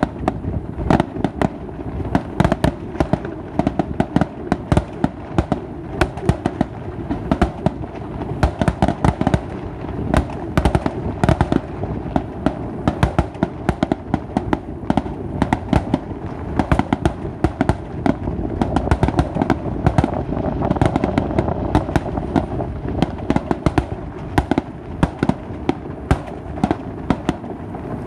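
Fireworks going off in a dense, continuous barrage of sharp bangs and crackles, many reports a second.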